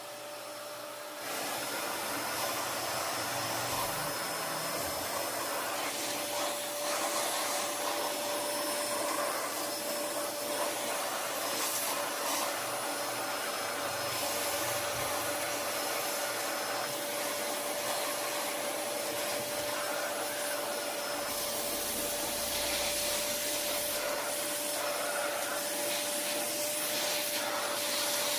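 Vacuum cleaner running steadily, a dense rushing noise with a steady motor whine, getting louder about a second in.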